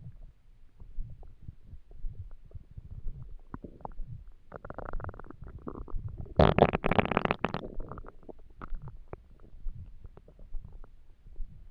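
Empty human stomach growling from hunger: low, crackly gurgles come and go, swelling to a louder gurgle a little before halfway and the loudest, longest one just past halfway, lasting about a second, before settling back to faint gurgling.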